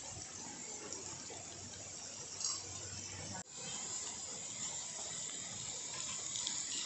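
Food frying on a wood fire, a steady sizzling hiss: an omelette in an iron pan, then shredded vegetables in a clay pot. The sound drops out for an instant about three and a half seconds in.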